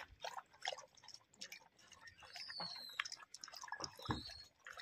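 A dog lapping water from a steel bowl: soft, irregular wet laps and small splashes.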